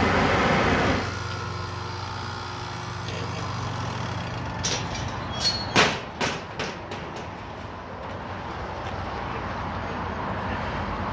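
The steady rush of a propane chile roaster stops abruptly about a second in, leaving a low hum from the rotating wire-mesh drum. Midway there is a quick run of five or six sharp metal clanks from the roaster's steel mesh drum and frame as it is stopped and opened.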